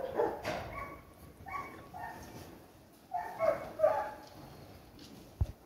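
Short, fairly high-pitched animal calls in three groups, a few in quick succession each, with a brief low knock near the end.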